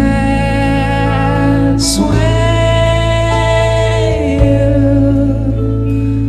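Rock band playing a slow song live, a male voice singing long held notes over a sustained instrumental backing and steady bass, with a sibilant 's' about two seconds in.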